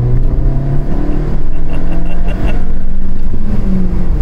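VW Golf Mk6 1.4 TSI's turbocharged four-cylinder engine accelerating hard at full throttle, heard from inside the cabin. The engine note climbs steadily and grows louder about a second and a half in.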